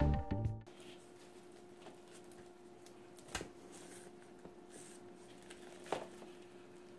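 Background music ending within the first second, then a faint steady hum with a few soft handling sounds from a plastic sandwich bag and plastic container as ground beef is pressed into the bag.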